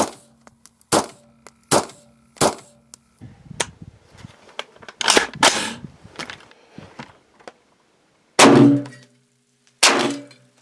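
AR-15 rifle with a bullpup conversion firing: four shots about a second apart, a short pause filled with rustling handling noise, then two more shots. A low metallic ringing hangs after the shots, typical of steel targets being hit.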